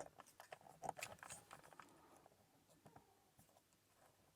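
Faint clicks and ticks of a combination lock box's number wheels being turned by hand, most of them in the first two seconds.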